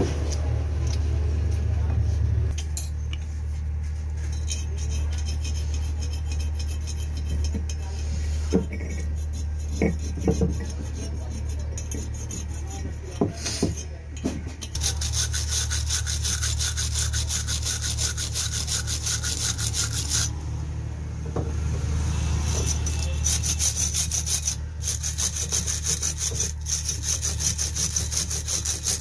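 Wire brush scrubbing the metal end housing of a tractor starter motor in rapid back-and-forth strokes: a rasping scrape in two long spells, starting about halfway through, with a short break between them. Before that, a few clinks of metal parts being handled, over a steady low hum.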